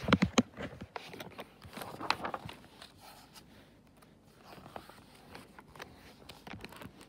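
Pages of a picture book being turned and handled: a quick cluster of knocks and paper rustles at the start, softer rustling about two seconds in, then faint handling.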